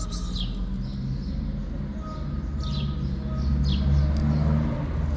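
Small birds chirping, sharp falling chirps roughly once a second, over a low rumble that swells and peaks about four seconds in.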